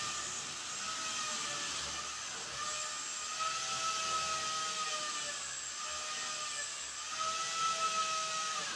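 Dental drill whining over a steady hiss, its pitch sagging and recovering a few times before it falls away and stops near the end.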